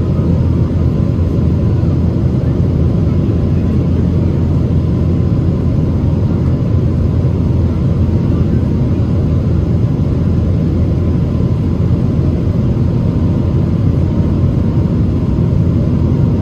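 Boeing 777-200ER's jet engines and airflow heard from inside the cabin in flight: a steady low roar with a faint steady whine above it.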